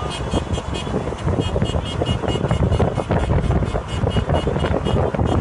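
Steady road and wind noise inside a moving car, with music carrying a fast, even beat playing over it.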